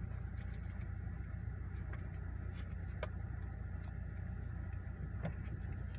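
Steady low hum of a car idling at a stoplight, heard from inside the cabin, with a few faint clicks.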